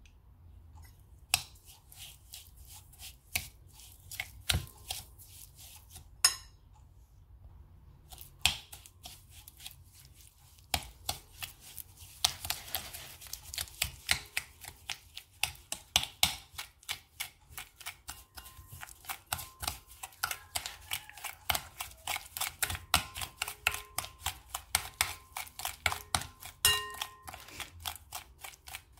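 Metal spoon creaming butter and sugar in a ceramic bowl, clicking and scraping against the bowl. A few scattered knocks come first, then quick steady strokes at about three a second from about ten seconds in.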